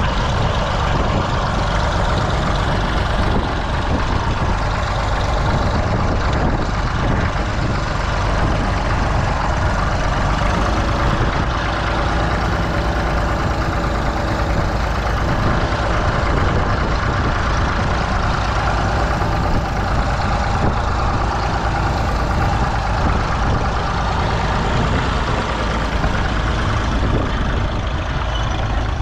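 Small vintage tractor engine running steadily under load as it pulls a mounted plough through stubble.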